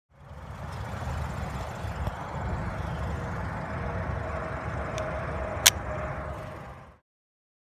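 Steady low rumble with a hiss, with a sharp click about five and a half seconds in and a fainter click just before it.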